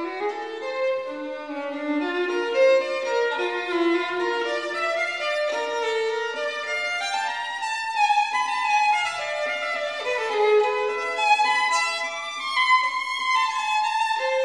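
Background music led by a violin, playing a melody of short sustained notes.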